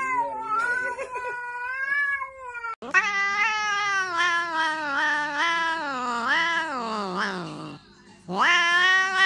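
A cat meowing in a drawn-out, wavering call, then a tabby cat yowling: a long caterwaul that slides up and down in pitch for about five seconds and breaks off, and a second one that starts loud near the end.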